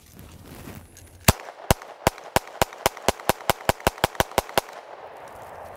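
Kriss Sphinx SDP Compact 9mm pistol fired in a rapid string of about sixteen shots, speeding up as they go. The mud-soaked pistol fires every round without a stoppage.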